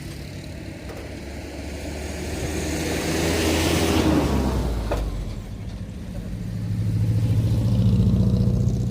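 Motor vehicle engines passing: one swells and fades about four seconds in, then a second engine's hum rises and peaks near the end.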